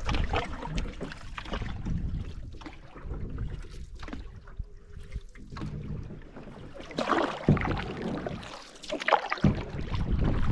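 A canoe being paddled on choppy water: uneven splashing and lapping of water against the hull, with low wind rumble on the microphone.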